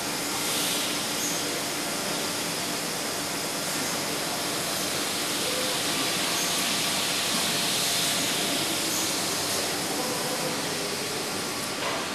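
Steady factory-floor machinery noise from a beer-keg handling line, a constant hiss-like din with a faint hum. A faint high chirp repeats every two to three seconds.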